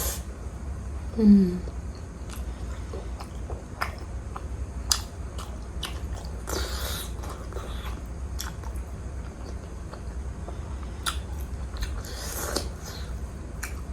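Close-up mouth sounds of eating juicy pork momo dipped in spicy tomato achar: wet chewing with many sharp clicks and smacks, a short hum about a second in, and two brief breathy rushes later on.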